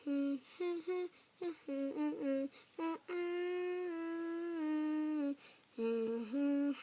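A girl's voice humming a tune: a run of short notes, one long held note that steps down slightly a little after three seconds in, then a few more short notes near the end.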